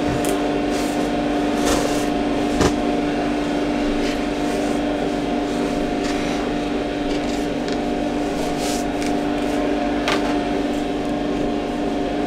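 A small motor hums steadily. Cloth is handled over it, with a few short soft clicks and rustles in the first three seconds and once more about ten seconds in.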